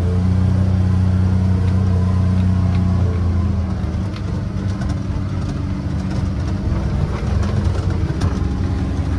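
Corvus DX4 Pro EPS UTV engine running while the buggy drives across grass, heard from the cab as a steady drone. The engine note drops back about four seconds in.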